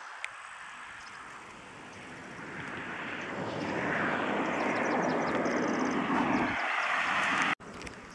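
Engine noise of a passing vehicle, growing louder over a few seconds and holding steady, then cut off abruptly near the end.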